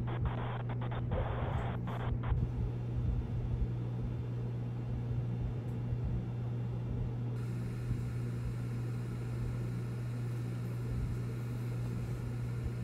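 A steady low hum with a noise hiss, with a run of sharp clicks in the first two seconds or so.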